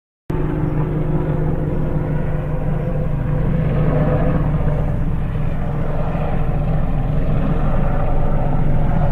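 Steady low engine rumble of a vehicle, starting abruptly a moment in.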